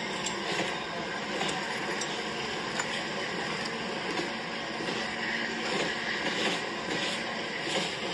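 Train running: a steady rolling noise with faint, irregular clicks.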